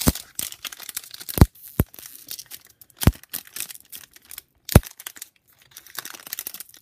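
Trading-card pack wrapper being torn open and crinkled by hand, with about five sharp knocks of cards and packaging being handled.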